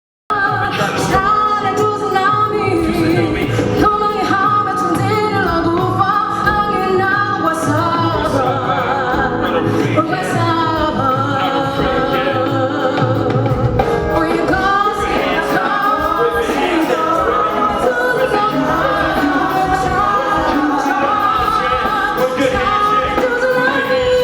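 Gospel music with singing voices over a full musical backing, cutting in abruptly at the start.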